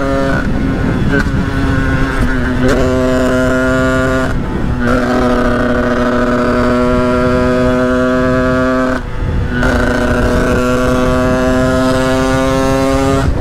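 Sherco 50cc two-stroke supermoto engine, fitted with a Stage 6 RT kit, running under way: a loud, steady high-pitched drone held at a nearly level pitch, dropping out briefly twice, about four and a half and nine seconds in.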